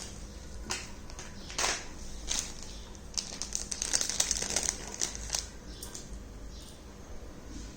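Packaging being handled during a jewellery unboxing: a few separate rustles and clicks, then a dense run of crinkling and clicking for a couple of seconds in the middle.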